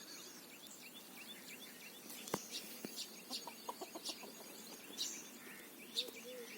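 Birds calling, many short high chirps repeating throughout, with a quick run of lower calls about halfway through. Two sharp clicks come a little after two seconds in.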